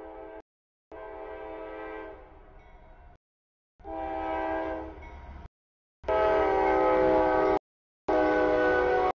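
A CSX freight locomotive's air horn sounds a series of chord blasts for the grade crossing, getting louder as the train approaches. The last two blasts, about six and eight seconds in, are the loudest.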